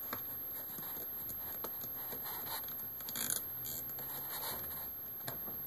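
Faint scattered clicks, taps and light scraping of hands handling laptop screen parts and screws, with a small cluster of knocks about three seconds in.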